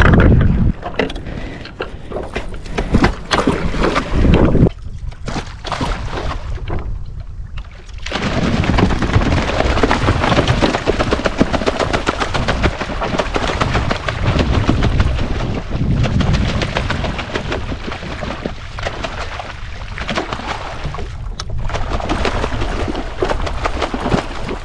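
A hooked tuna thrashing against the side of a kayak, its tail beating the water in rapid, continuous splashing that starts about a third of the way in. Before that, uneven wind noise on the microphone.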